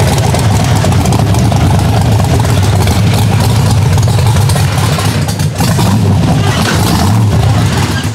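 Rock-crawling buggy's engine running loud and steady at low revs as the buggy crawls up a rocky ledge.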